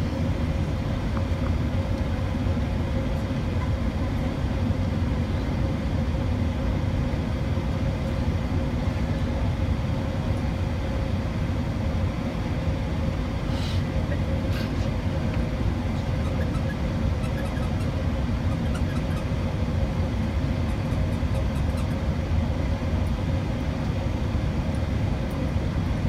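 Steady cabin noise of an Airbus A380-800 in descent, heard from a window seat: a low, even rumble of engines and airflow with a faint steady hum. A couple of brief clicks come about halfway through.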